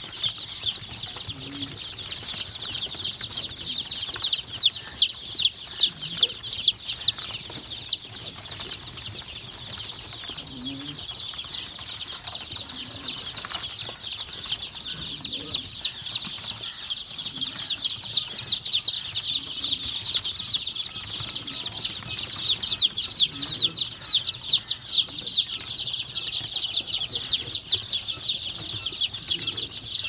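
A flock of day-old country chicken chicks peeping nonstop, many high, short chirps overlapping into a steady chorus that swells louder now and then.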